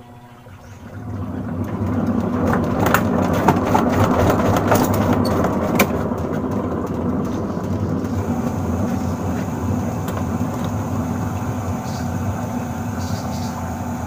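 Sharp top-load automatic washing machine's drive motor starting up and turning the tub through its belt and pulley in spin mode, with a clatter of clicks and rattles for the first few seconds and then a steady hum. The spin runs but a fault remains: the repairer puts it down to the shift gear slipping back into wash mode.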